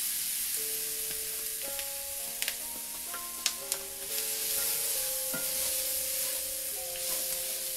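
Diced onion, green bell pepper and celery sizzling as they are tipped into a hot butter-and-flour roux in a cast-iron skillet and stirred with a wooden spoon; the water in the vegetables spits against the hot fat. A few sharp clicks from the utensils.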